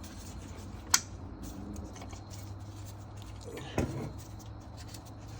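A wrench levering the serpentine belt tensioner pulley on a 2014 Subaru Impreza to slacken the belt: one sharp click about a second in and a short clunk near four seconds, over a low steady hum.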